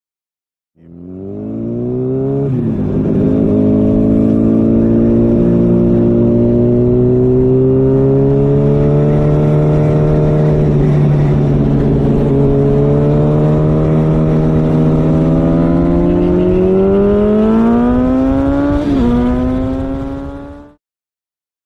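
Sport motorcycle engine running under way, its pitch climbing slowly as it accelerates and dropping sharply at each upshift. It fades in about a second in and fades out near the end.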